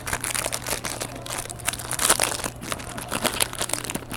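Crinkling and crackling of a trading-card pack's wrapper as it is handled and opened, in quick irregular crackles.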